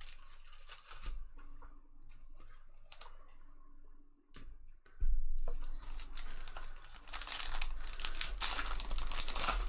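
Trading card pack wrapper being torn open and crinkled, loudest from about halfway on, after a few seconds of light clicking and handling.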